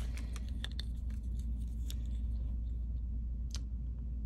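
A few faint clicks and light handling noises as a keychain is taken out of a sheer organza bag, over a steady low hum.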